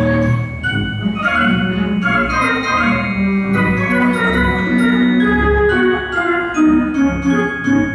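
Theatre organ playing live accompaniment to a silent film: a quick run of short notes over sustained bass notes.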